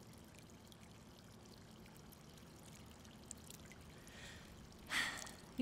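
Faint, steady hiss like trickling water, with a short breathy sound near the end.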